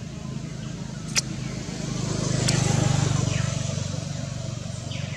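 A motor vehicle's engine passing by, a low steady hum that swells to its loudest about two to three seconds in and then fades. There is a single sharp tick about a second in.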